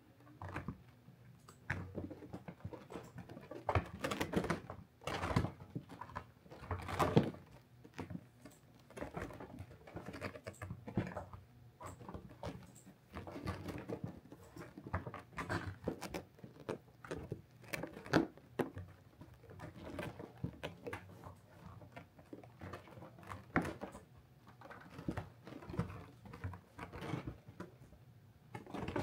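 Kittens scrambling and pawing inside a felt cat cave: irregular scratching and rustling with soft patters and knocks.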